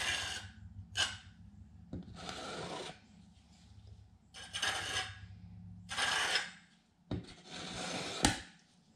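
Tile adhesive being scraped and smoothed onto the back of a ceramic subway tile with a spreader: about six rasping strokes, each under a second long, with a sharp click near the end.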